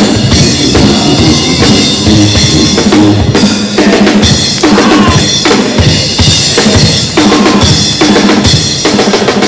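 College pep band playing loud music in a basketball arena, the drum kit driving a steady beat with bass drum and snare hits under the band.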